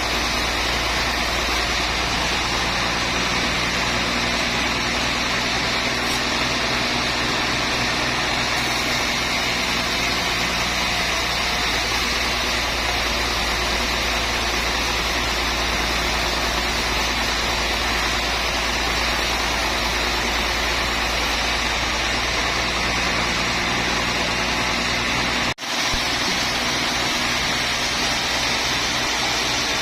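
Sawmill machinery running steadily, a constant mechanical noise with a faint steady drone underneath. It cuts out for an instant about 25 seconds in, then carries on as before.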